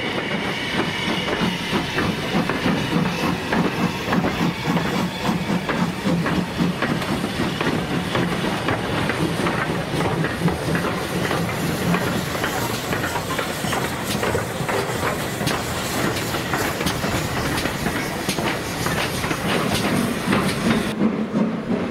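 Steam locomotives moving slowly past close by, with steam hissing and wheels clicking and clanking over the rails.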